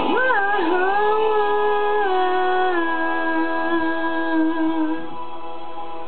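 A woman's voice humming a wordless held melody. It scoops up into a long note, then steps down twice and stops about five seconds in. Instrumental backing music keeps playing under it and after it.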